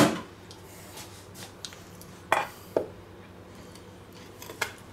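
Metal clinks from a steel rotisserie spit and meat fork knocking against each other and the wooden cutting board as the roast is handled on the spit: one sharp clink at the start, then three lighter ones over the next few seconds.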